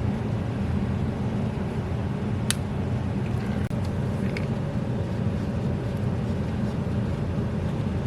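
A steady low rumble throughout, with one sharp click about two and a half seconds in and a few faint ticks soon after.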